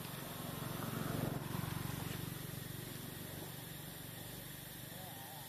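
A low, steady engine hum that swells louder about a second in and then eases back.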